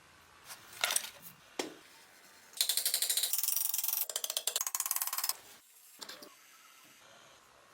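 A ratcheting mechanism clicking rapidly and evenly for about three seconds, after a few separate clicks and knocks.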